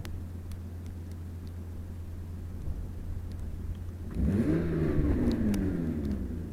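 2005 Kia Sorento's TOD transfer case with a stretched drive chain, heard as the vehicle runs. A steady low hum with scattered light clicks gives way about four seconds in to a louder whine that rises and then falls in pitch. This is the sound of a worn, stretched transfer-case chain crunching.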